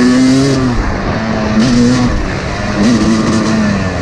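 2011 Yamaha YZ250 two-stroke single-cylinder dirt bike engine under load on a trail ride, its pitch rising and dropping as the throttle is worked, with two short revs about a second and a half in and near three seconds.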